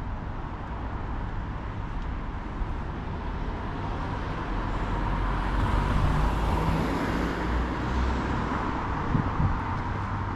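Road traffic, with a motor vehicle passing close by that grows louder towards the middle and fades again.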